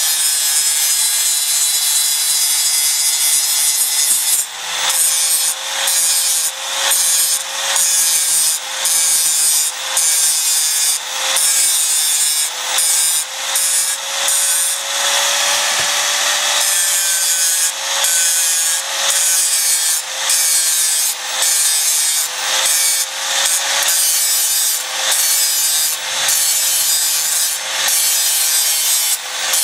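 Handheld angle grinder running with a steady whine, its disc grinding the steel of a band saw blade at the blade's joint to finish it flush. For the first few seconds the disc stays on the steel; after that it is pressed on and eased off in short passes about once a second, with one longer unbroken pass midway.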